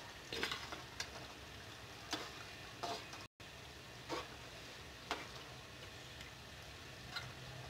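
A metal spoon stirring a thick spinach-and-beef curry in a metal pot, with about seven short scrapes and clicks of the spoon against the pot at irregular intervals. Under them the curry sizzles faintly and steadily on high heat.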